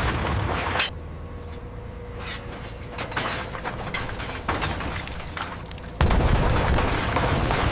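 Heavy scrap steel crashing and clanging as a magnet crane drops it. The first crash dies away within the first second, leaving scattered metal knocks over a faint steady hum, then a second heavy crash hits suddenly about six seconds in and keeps clattering.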